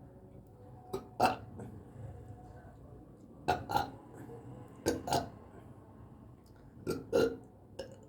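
A person belching repeatedly from a bloated stomach: short burps, mostly two in quick succession, repeating about every second and a half to two seconds.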